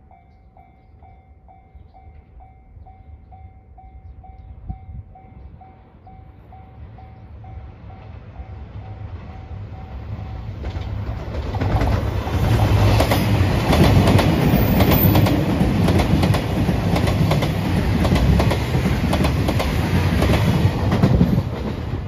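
A Japanese level-crossing alarm bell dings about twice a second, then a JR Shikoku 2700-series diesel express train comes up and passes close by. From about eleven seconds in its engines and wheels grow loud over the bell, with rapid clacks over the rail joints, and the sound eases off near the end.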